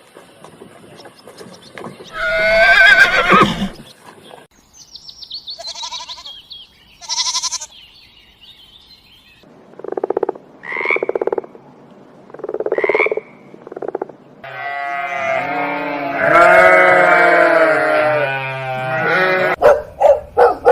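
A string of different animal calls, one after another: one call, two high-pitched calls, four short calls, one long drawn-out call, then quick short calls near the end. The tagger hears farm animals such as goats or sheep among them.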